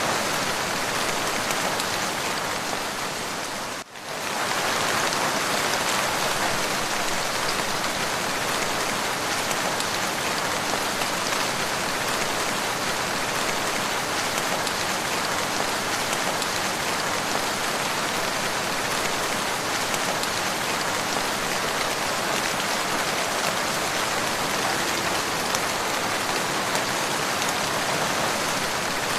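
Steady rain falling, an even hiss of many drops, with a brief dip in level about four seconds in.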